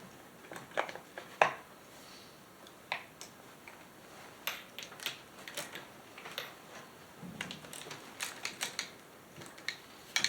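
Irregular light clicks and metal clinks of hand tools and small parts against an old chainsaw being worked on, coming faster from about halfway through.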